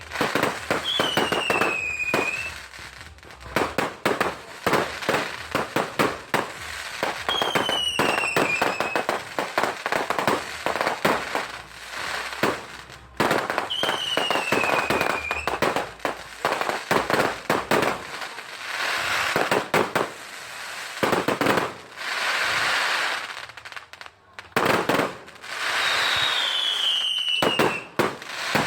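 Fireworks display: rapid bangs and dense crackling, with four short falling whistles spaced through it.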